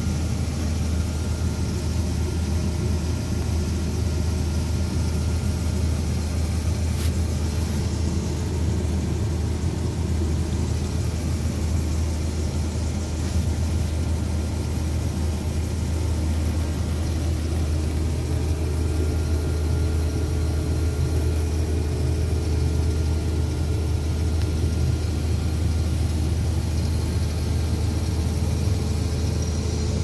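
Combine harvester running steadily, heard from inside the cab: a constant low engine hum that does not change.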